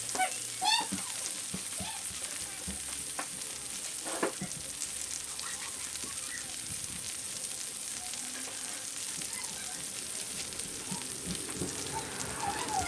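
Salmon fillets frying on a Blackstone flat-top griddle turned up on high, with a steady sizzling hiss and a few small clicks.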